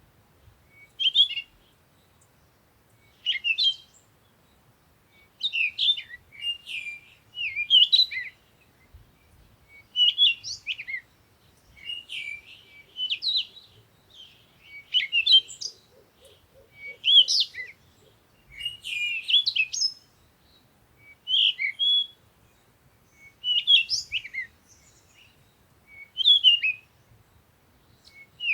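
A songbird singing short, quick chirping phrases, roughly one every one to two seconds with brief pauses between.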